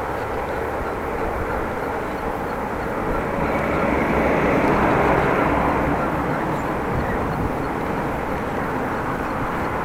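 Steady wind and road noise from a bicycle being ridden, swelling louder for about three seconds halfway through.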